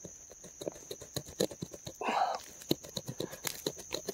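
A bare hand scraping and pulling at loose, gravelly dirt by hand: a quick run of small scratches and crumbling clicks, with a louder scraping swish about two seconds in.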